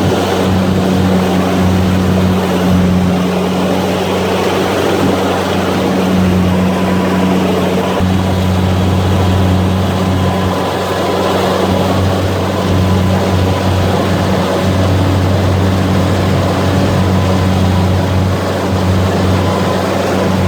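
Rice combine harvester running steadily in the field: a loud engine drone with a deep hum, over the rushing noise of its threshing and auger machinery.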